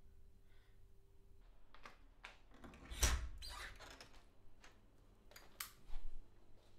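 A run of sharp clicks and knocks with a heavy thump about three seconds in, then a loud click near the end as a wall light switch is pressed.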